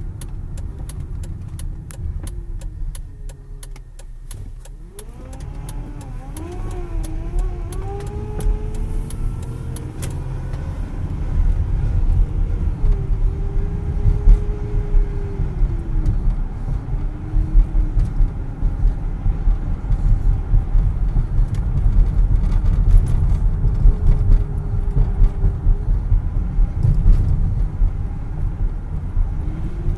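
2010 Dodge Journey running and driving, with a low rumble under a whining tone that rises and falls in pitch. The tone climbs sharply about five seconds in, and the sound grows louder from about eleven seconds in. This is the grinding noise heard when accelerating or steering, caused by a failing power steering pump.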